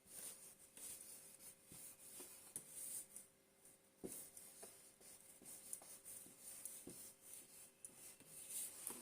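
Near silence with faint, scattered scratches and light ticks of a pen marking a worksheet.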